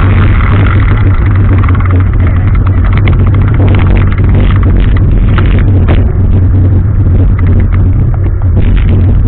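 Loud, steady running noise of a vehicle with a heavy low rumble throughout.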